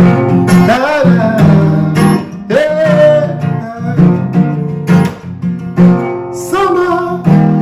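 Acoustic guitar strummed in a steady rhythm as worship-song accompaniment, with a voice singing wordless phrases over it and a sung word starting near the end.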